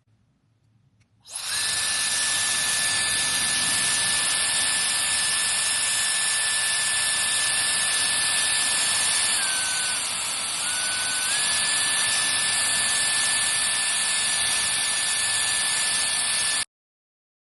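High-speed brushless-motor hair dryer switched on about a second in, blowing with a steady rush of air and a thin high whine. Near the middle the whine drops in pitch and the air eases for a moment as the motor slows, then both come back to full speed. It stops abruptly near the end.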